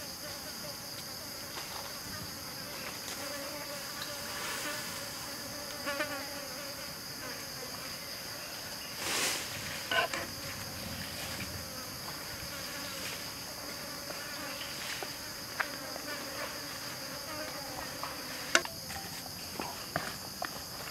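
Steady high-pitched chorus of insects. It is broken by a few sharp clicks and knocks, the loudest about ten seconds in and another near the end.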